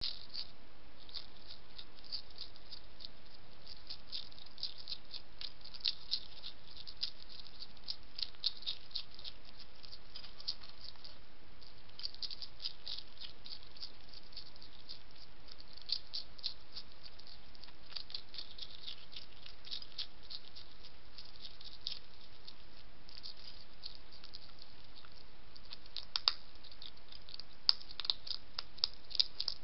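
Hedgehog chewing dry pellet food from a bowl: rapid small crunching and clicking, with a few louder clicks near the end.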